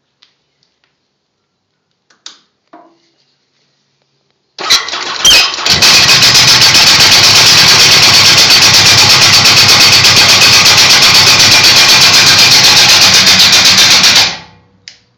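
Yamaha XJR 1200 motorcycle's air-cooled inline-four engine started on the electric starter: a short crank, a brief break, then it catches and runs steadily and loudly for about eight seconds before being switched off near the end. A couple of faint clicks come before the start.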